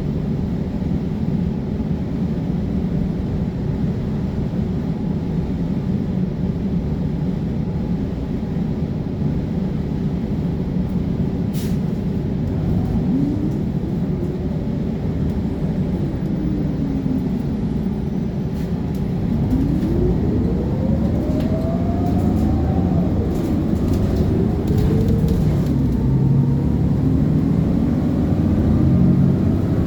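Diesel transit bus engine running steadily, then pulling away. Its pitch rises and drops several times as the automatic transmission shifts up through the gears.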